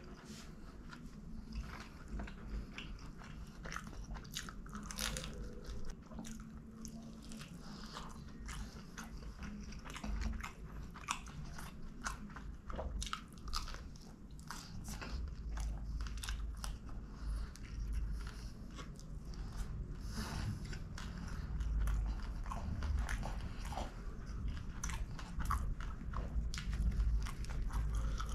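Biting and chewing of a crispy Pizza Hut Melt (folded thin-crust pizza with chicken), with many small sharp cracks throughout and the chewing getting louder in the second half.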